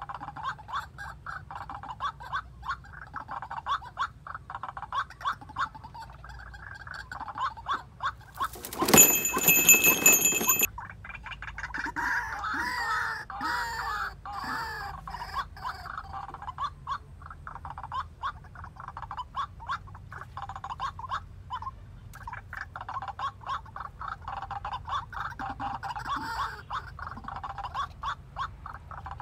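White-breasted waterhens calling: a fast, continuous run of repeated call notes, with warbling calls for a few seconds about twelve seconds in. A loud noisy burst lasting under two seconds comes about nine seconds in.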